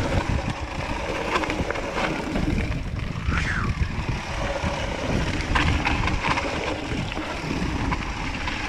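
Hardtail mountain bike descending a rough trail: a steady rumble of tyres over roots and rocks with many short knocks and rattles from the bike, and wind on the microphone. A brief falling squeak sounds about three and a half seconds in.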